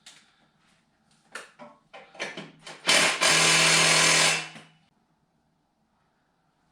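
A few light metallic clicks and knocks, then a cordless power tool runs in one burst of about a second and a half, undoing a fastener on the exhaust downpipe.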